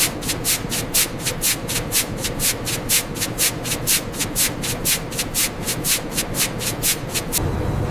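Machine making a rhythmic swishing, about four strokes a second. It stops just before the end and gives way to a steady low rumble.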